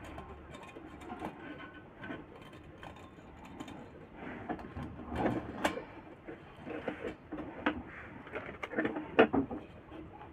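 Irregular light clicks and scraping as a coiled heating-element wire is handled and pressed into the grooves of a cooking heater's ceramic plate, with louder knocks about five and nine seconds in.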